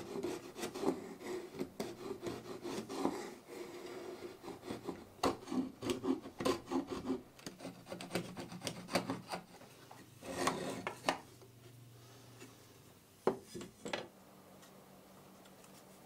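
Steel chisel scraping the wooden box of an old coffee grinder in short, uneven strokes. The strokes stop about eleven seconds in, and a few more come a couple of seconds later.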